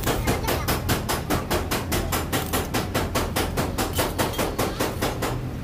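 Stick (arc) welding on a car's front bumper: an even run of sharp crackling cracks, about six a second.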